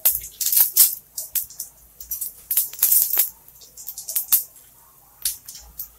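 Whole spices (fennel seeds, cardamom, cinnamon and bay leaves) crackling and popping in hot oil in a stainless-steel pan. The pops come irregularly, each one sharp, and thin out toward the end.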